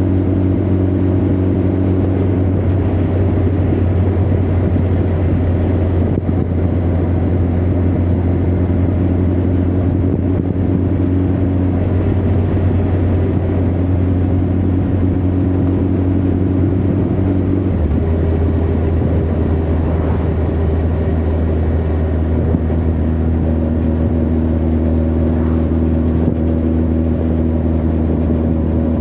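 Honda CB1300 Super Bol d'Or's inline-four engine and exhaust running at cruise under a motorcycle rider, over a steady rush of wind. The engine note holds steady, then shifts to a new pitch several times as the revs change.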